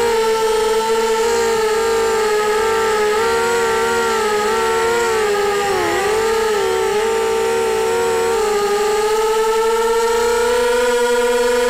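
A QAV250 racing quadcopter's four brushless motors and propellers whining, heard close from the onboard camera: several close tones waver up and down with throttle changes, dip briefly about six seconds in, then from about eight seconds climb and hold at a higher, steadier pitch.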